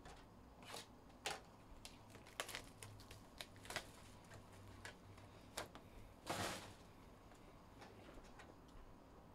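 Faint, scattered clicks and taps of a cardboard trading-card box being handled and opened, with a brief rustle of packaging about six seconds in.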